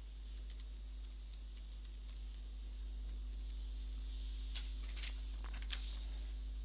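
Computer keyboard typing: a quick run of light key clicks, then a few louder, separate clicks near the end. A steady low hum sits underneath.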